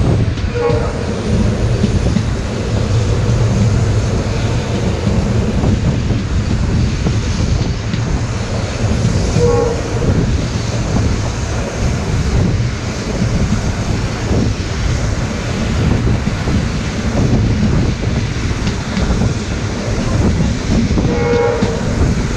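Indian Railways express train running at speed, heard from onboard: a steady rumble of coach wheels on the rails. Three brief high tones sound about half a second in, near the middle and near the end.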